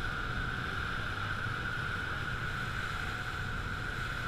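Rigid inflatable speedboat under way, its engine running steadily with a low drone and a steady high whine, mixed with wind on the microphone.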